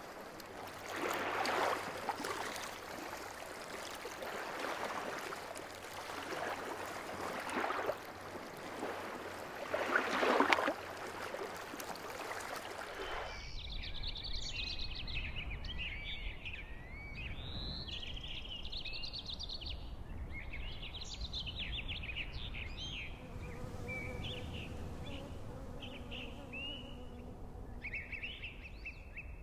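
Nature soundscape: rushing water in swelling surges for the first half, then an abrupt switch to birds chirping and twittering over a faint low rumble.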